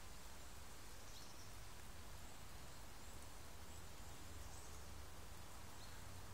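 Quiet outdoor background: a steady hiss and low rumble, with a few faint, short, high bird chirps scattered through.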